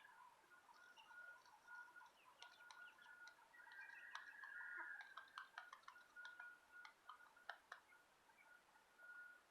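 Faint chickens preening: soft, short, high calls repeated about every half second, with a longer warbling stretch around the middle, and scattered small sharp ticks throughout.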